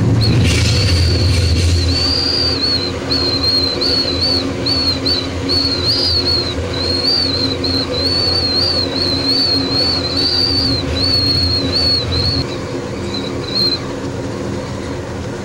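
Amtrak Southwest Chief passenger train running on the rails: a steady low rumble with a high, wavering, whistle-like squeal over it that breaks up and stops near the end. There is a louder, noisier stretch in the first couple of seconds, and the train passes a double-stack freight train on the adjacent track.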